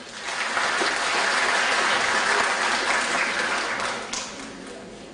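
Audience applauding in a large hall: the clapping swells quickly, holds steady for about three seconds, then dies away near the end.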